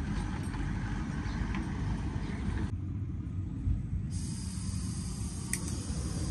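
A low, steady rumble, with a fainter hiss over it that drops out abruptly about two and a half seconds in and comes back stronger about four seconds in.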